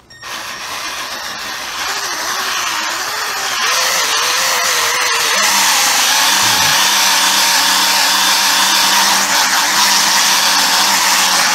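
12-volt handheld polisher spinning a buffing pad over painted motorcycle bodywork, cutting out scratches in the clear coat. Its whir comes in at once, grows louder over the first few seconds, then runs steadily, its pitch wavering as the pad is pressed and moved.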